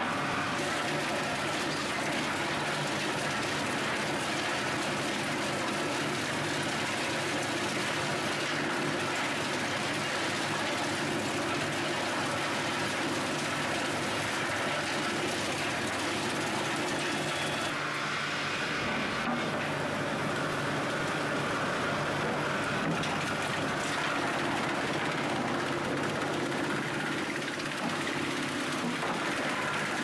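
Vibrating conveyor feeding a Skorpion 350EB wood chipper, running steadily under a load of wood offcuts, with the chipper working at the end. The result is an even mechanical rattle with a steady low hum that goes on without pause.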